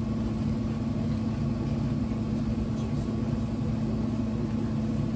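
Steady low hum of room background noise, with one constant low tone under it and no distinct events.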